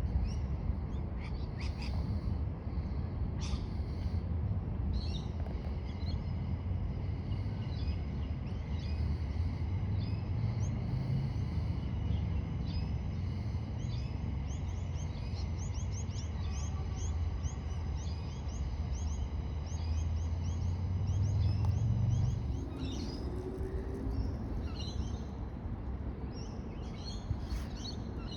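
Outdoor ambience of birds chirping over a steady low rumble. One bird repeats a rapid series of high chirps for a long stretch, stopping a little after the two-thirds mark.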